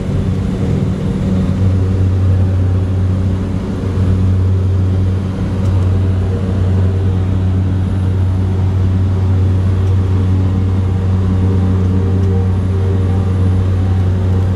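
Cabin noise of a single-engine Cessna Caravan turboprop in flight: a loud, steady propeller and engine drone with a deep hum and overtones, holding an even pitch.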